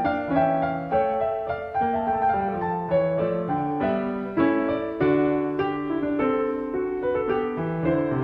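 Solo piano music: a steady flow of notes over a moving bass line.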